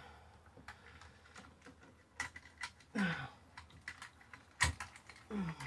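Light clicks and taps from insulated electrical cable being pushed by hand into a ceiling electrical box, with two short falling vocal sounds, one about three seconds in and one near the end.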